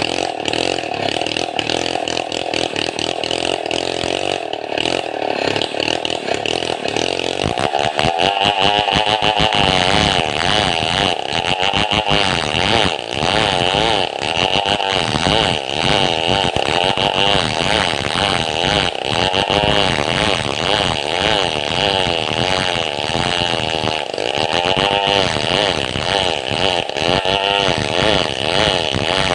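Two-stroke chainsaw cutting a hardwood log (madang bakaw). About seven seconds in it gets louder and its pitch rises and falls as the chain works under load.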